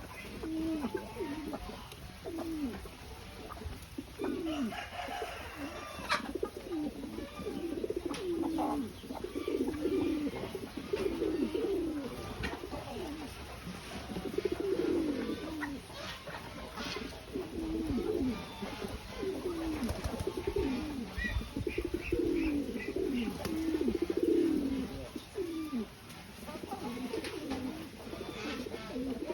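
Domestic pigeons cooing continuously, several birds' low falling coos overlapping, with a few clicks and a brief run of short high chirps.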